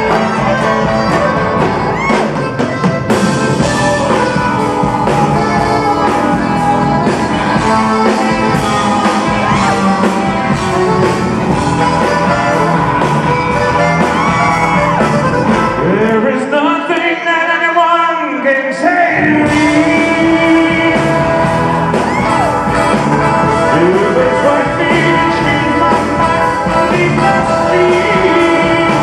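A live band playing a rock-and-roll number with drums, upright bass, electric guitar and accordion, and a man singing. About sixteen seconds in, the drums and bass drop out for a couple of seconds, leaving a bending, sliding line on its own, then the full band comes back in.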